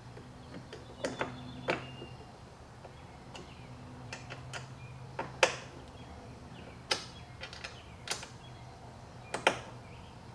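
Allen wrench turning and being re-seated on a bracket screw of an aluminium bed-slide rail, hand-tightening it: irregular sharp metallic clicks and taps, about a dozen, over a low steady hum.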